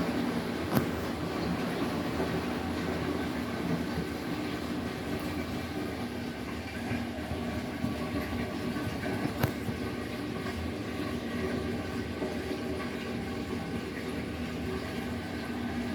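A 10 kg washing machine with two pillows in its drum, running the start of its final spin with a steady rumble and hum. Two sharp knocks come through, about a second in and again a little past halfway.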